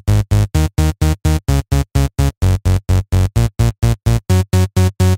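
Electronic dance music with a heavy bass, chopped into short, evenly spaced pulses about five times a second.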